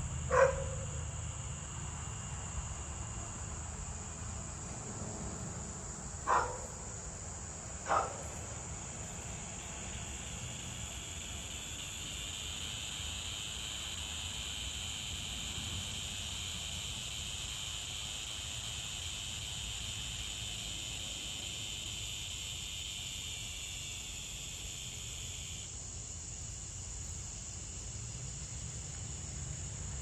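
Crickets trilling steadily, joined about ten seconds in by a lower insect chorus that stops a few seconds before the end. A dog barks once at the start and twice more about six and eight seconds in.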